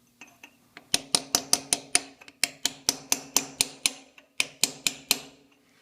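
Hammer rapidly tapping a chisel to drive a loosened exhaust valve seat out of a cast iron cylinder head. The taps come about five a second in three runs, each with a short metallic ring, and are preceded by two light taps. The seat is stubborn and slow to come free.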